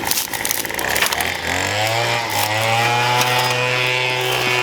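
Small petrol engine starting about a second in, rising in pitch as it spins up and then running steadily, after a few knocks and clatter.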